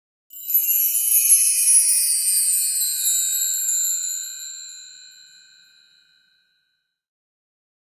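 A bright, bell-like shimmer sound effect: several high ringing tones together, coming in just after the start and fading away over about five seconds.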